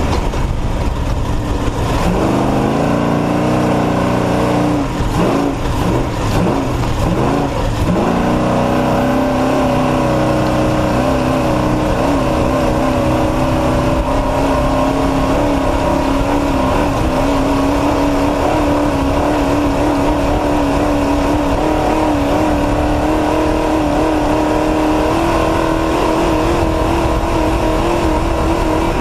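Off-road race truck's engine running hard, its revs dropping and climbing several times in the first few seconds, then holding a steady high note.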